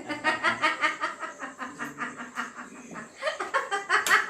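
A person laughing, a quick run of short chuckles that grows louder near the end.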